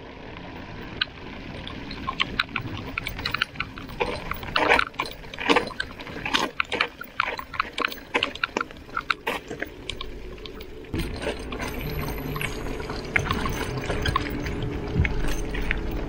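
Mountain bike rolling over a loose, stony dirt road: tyres crunching on gravel and the bike rattling over the stones with many sharp clicks and knocks. Later it settles into a steadier low rumble.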